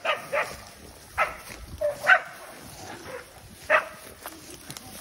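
Hunting dog barking, a series of short, sharp barks, about six over the first four seconds, the loudest a little after two seconds in.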